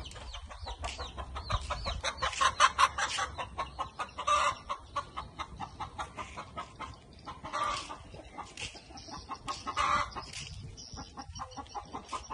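Chicken clucking: a fast run of short clucks in the first few seconds, then louder, longer calls every two or three seconds.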